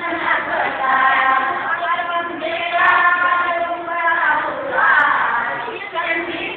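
Group of women singing together in unison, holding each note and sliding between some of them.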